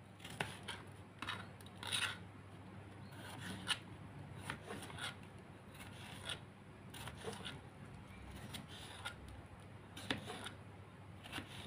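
A kitchen knife cutting a tomato held in the hand into wedges over a plastic plate: faint, irregular short cuts and small clicks about once a second.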